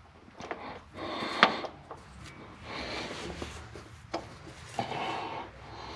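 Rubbing and scraping with a few sharp clicks, the loudest about a second and a half in: a fuel transfer pump and its mounting bolt being worked into place against a diesel engine by hand.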